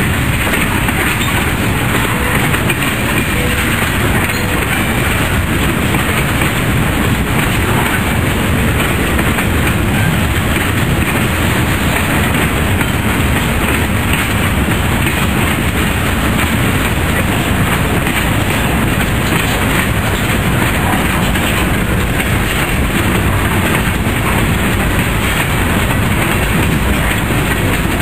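Freight cars of a passing manifest freight train rolling by at close range: a loud, steady rumble and rattle of steel wheels on the rails.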